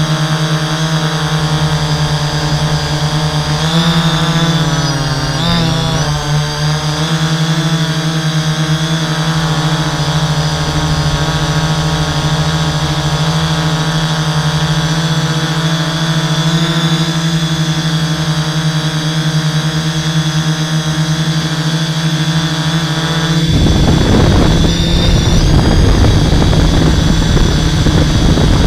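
The six electric motors and 11-inch propellers of a 650-size hexacopter hum steadily in flight, heard from a camera mounted on the airframe. The pitch wavers briefly a few seconds in as the motors change speed, and a low rushing noise cuts in suddenly near the end.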